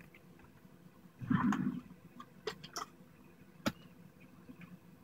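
Quiet handling noises as a knife is taken out of its box: a short rustle about a second in, then a few sharp clicks.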